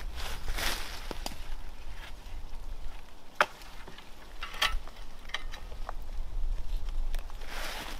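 Footsteps shuffling through dry leaf litter, with a few sharp clicks in the middle of the stretch.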